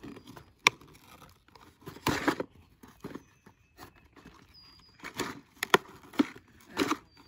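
Cardboard box being handled and a plastic-packaged set of fishing hooks pulled out of it: short bursts of cardboard scraping and packaging rustle. There is a sharp tap near the start, a longer rustle at about two seconds, and several quick ones near the end.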